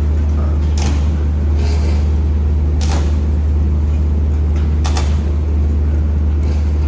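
Reinforced-concrete pipe cage welding machine running: a loud, steady low hum, with short hissing bursts about a second in, near the middle and again about five seconds in.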